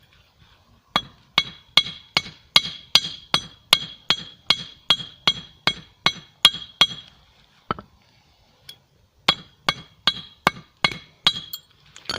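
Hammer blows on a glowing-hot steel screw on a small anvil, each blow with a ringing metallic clang: hand-forging the screw flat into a blade. A steady run of about sixteen blows, roughly two and a half a second, then a pause with two single blows, then a second run of about seven.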